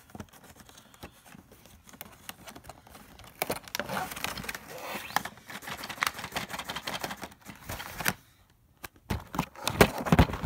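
A cardboard toy box and its plastic packaging being handled and worked open by hand: scattered scrapes, rustles and small clicks. It cuts out briefly a little past eight seconds, then louder crinkling comes near the end.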